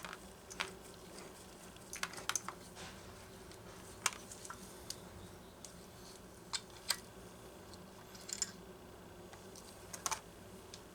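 Scattered light clicks and taps of small metal engine parts being handled during a chainsaw teardown, a few a second at most with gaps between, over a faint steady hum.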